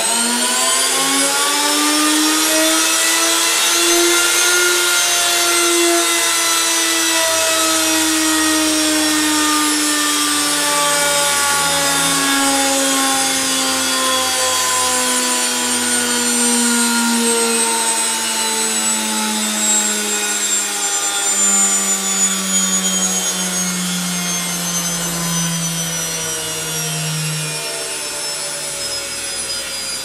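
Stripped-out washing machine drum and motor running flat out under no housing, smoking as it is run to destruction: a loud whine with a noisy rush beneath it. It climbs in pitch over the first few seconds, then slowly sinks as the drum loses speed.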